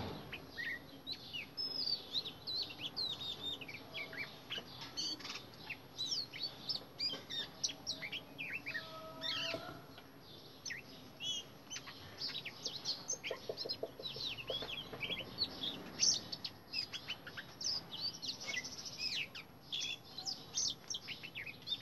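Oriental magpie-robin singing: a long, varied run of quick whistled and chattering notes.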